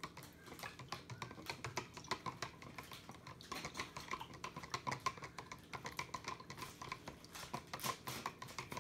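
A white plastic spoon stirring salt water in a clear plastic cup, knocking and scraping against the cup's sides in rapid, irregular clicks as the salt is stirred to dissolve.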